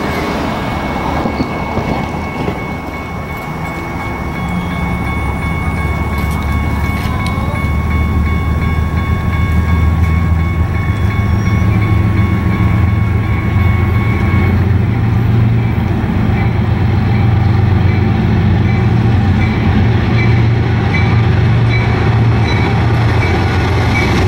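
CSX freight train's diesel locomotives approaching and drawing close, their low engine rumble growing louder from about a third of the way in.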